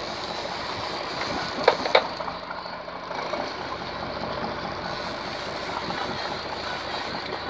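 Boat engine running steadily, with two sharp clicks about two seconds in.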